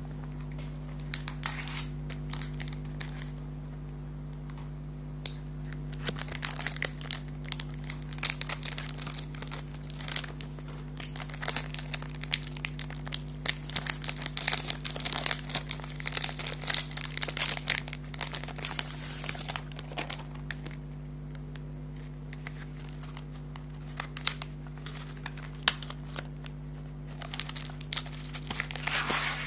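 Snack packaging being crinkled and torn open by hand in irregular crackly bursts, busiest through the middle and again near the end, over a steady low hum.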